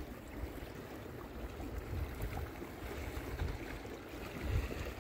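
Low, uneven rumble of wind buffeting the microphone outdoors, swelling about two seconds in and again near the end, over a faint steady hiss.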